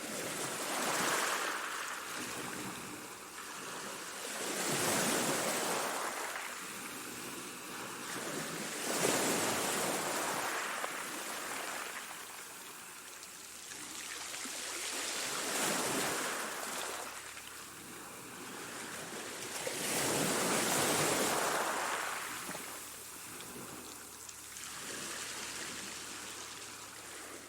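Choppy sea: a continuous wash of waves that swells and ebbs in surges every four to six seconds.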